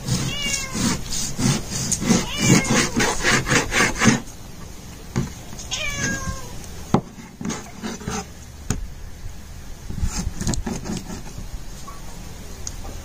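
A cat meowing three times, each call falling in pitch. Under the first calls, a fast run of short scraping strokes as a kitchen knife saws through raw beef on a plastic cutting board, then scattered knife clicks and rubbing.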